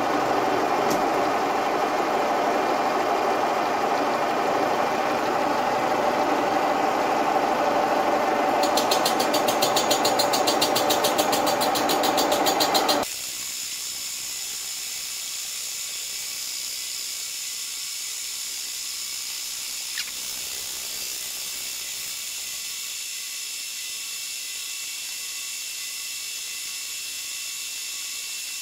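Milling machine face-milling the end of an aluminium extrusion profile: the face mill cutting with a loud, steady grinding noise, joined by a fast rapid ticking in the high range for the last few seconds of the cut. About thirteen seconds in the cutting noise stops abruptly, leaving the spindle running with a quieter, steady high tone and a single click later on.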